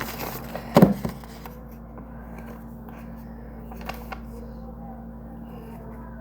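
Handling noise while a number is drawn: one short, loud knock and rustle about a second in, then two faint clicks near the middle over a steady low hum.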